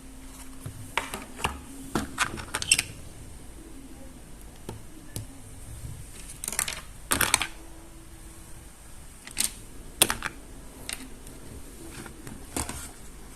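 Hard plastic toy pieces clicking and tapping as they are handled and fitted together, in irregular clusters of sharp clicks with pauses between them.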